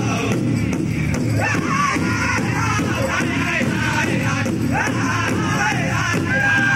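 Pow wow drum group singing a high, wavering chant over a steady beat on a big drum, the voices sliding up and down in pitch with a held high note near the end.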